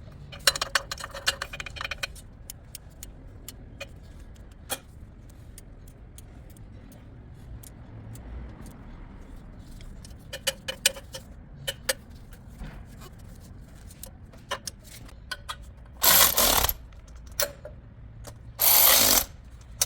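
Small hand ratchet clicking as exhaust manifold nuts are run down, with a quick run of clicks in the first two seconds and scattered clicks and metal tool knocks after. Near the end come two loud bursts of noise, each about half a second long.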